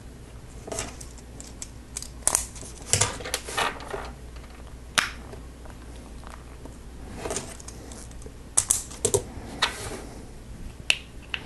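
Plastic Lego Technic parts being handled and pressed together: scattered sharp clicks and rustling scrapes, as the wheels and tires are fitted onto the truck's axles.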